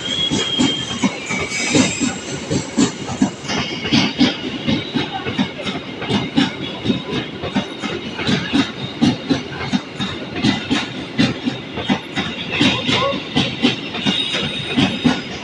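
Freight train wagons rolling past at speed, the wheels clattering over the rail joints in a steady clickety-clack, with a thin high squeal near the start and again near the end.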